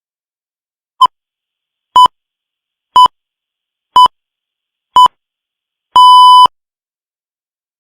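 The Greenwich Time Signal 'pips': five short beeps of one steady tone, one a second apart, then a longer final beep about six seconds in that marks the exact start of the hour.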